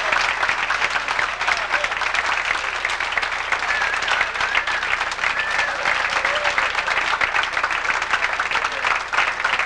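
Audience applauding steadily, dense clapping throughout, with a few voices calling out over it.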